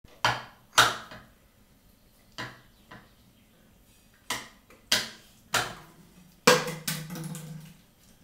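A small child knocking a kitchen utensil against a wooden chopping board and pan: about eight sharp, irregular knocks, the last and loudest followed by a short low hum.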